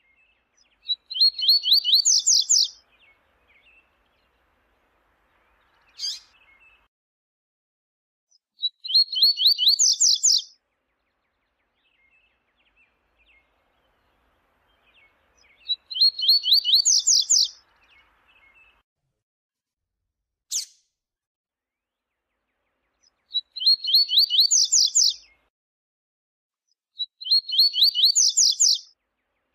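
Double-collared seedeater (coleiro) singing: five short phrases of rapid high notes that climb in pitch, each about a second and a half long and spaced several seconds apart. A short, sharp single note sounds twice between the phrases.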